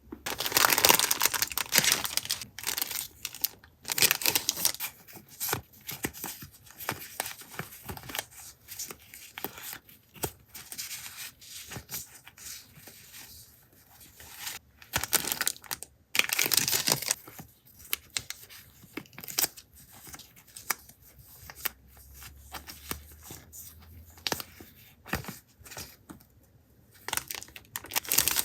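Paper and packaging being torn and crinkled by hand, in bursts of rustling with small taps and clicks between. The loudest tearing comes near the start and again around the middle.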